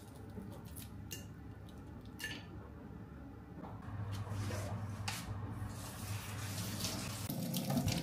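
Kitchen tap running into the sink, coming in about halfway through and getting louder toward the end, with a few light clicks of eggshell being peeled before it and a steady low hum underneath.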